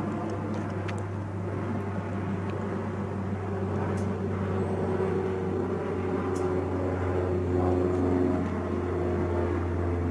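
A steady low engine drone, a constant hum with overtones that shift slightly about two thirds of the way through, with a few faint clicks.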